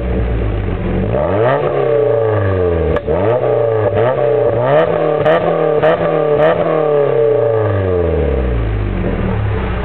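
Mazda MX-5's four-cylinder engine and exhaust revved several times from idle, the pitch rising and falling again and again, with a few sharp cracks in the middle. It drops back to a steady idle near the end.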